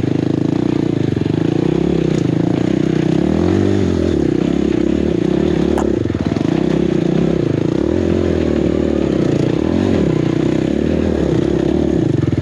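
Four-stroke enduro dirt bike engine running continuously, its pitch rising and falling a little as the throttle is worked. There is one sharp click about six seconds in.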